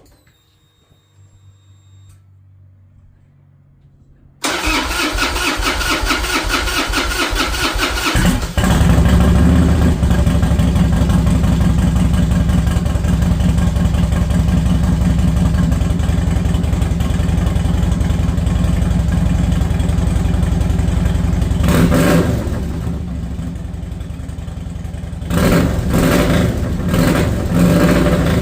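Harley-Davidson Dyna Wide Glide's fuel-injected V-twin being started after a fuel pump replacement: the starter cranks for about four seconds, then the engine catches and runs. It settles slightly lower about 22 seconds in, then gets a few uneven blips of throttle near the end.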